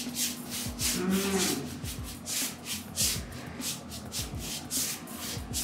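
Paintbrush scrubbing decorative paint onto a wall in quick repeated strokes, a rhythmic swishing of about three strokes a second.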